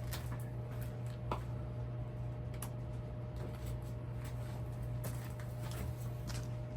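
A Marley Leading Edge 56-inch industrial ceiling fan running at medium-low speed: a steady low motor hum with a fainter steady higher tone. Light scattered ticks come through over it.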